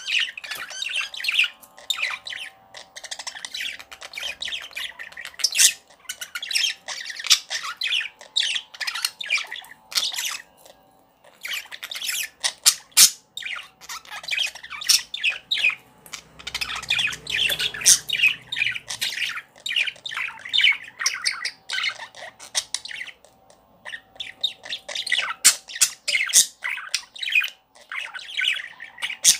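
Ballpoint pen scratching across ruled notebook paper while writing cursive letters in one continuous line: quick, irregular strokes with short pauses as the pen moves on.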